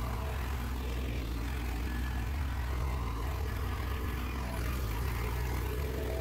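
Caterpillar tracked excavator's diesel engine running steadily and low-pitched as the machine tracks away.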